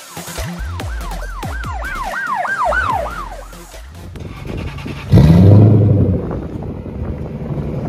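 Electronic music with a siren-like wailing sweep repeating about three times a second, fading out. About five seconds in, the Lexus GS430's 4.3-litre V8 starts with a loud flare of revs and then settles to a steady idle.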